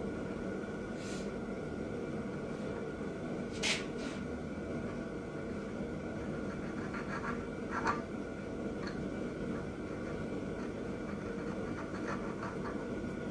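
Light scratching of a hand file worked on the steel threads of a Predator 212 crankshaft end, with a few sharp metal clicks, the loudest about four and eight seconds in, over a steady hum.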